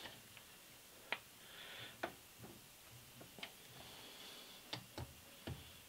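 Lathe carriage being cranked slowly along the ways by its handwheel: faint, scattered light clicks and ticks from the moving carriage and taper-attachment slide.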